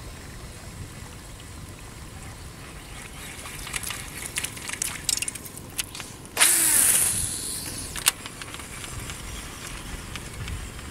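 A few scattered sharp clicks, then a sudden loud splash in shallow water about six seconds in that fades away over about a second, with one more sharp click shortly after.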